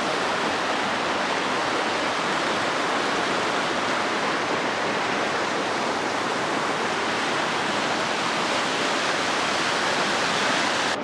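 A river's water rushing, a steady, even rush without a break.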